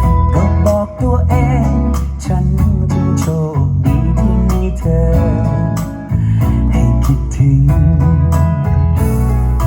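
A song played back through a Bluetooth speaker for a sound test: guitar and bass with a strong low end, and a singing voice.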